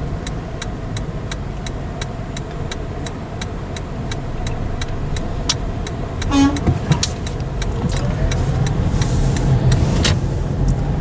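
Car interior road noise, a steady low rumble of engine and tyres while driving. Over the first few seconds there is an even ticking, about four ticks a second, and a short sharp squeak comes just past halfway.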